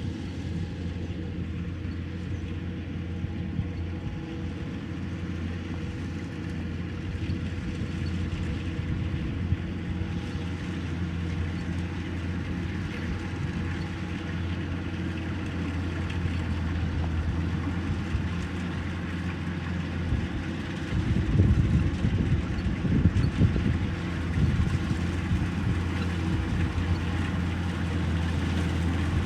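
Kubota rice harvester's engine running steadily under load, a constant low hum. About two-thirds of the way in it grows louder for a few seconds, with an irregular rumble and knocks.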